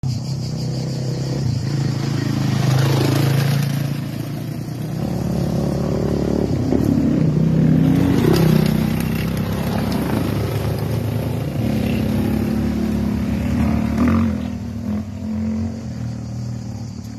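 A motor vehicle's engine running, its pitch rising and falling as it revs and eases off.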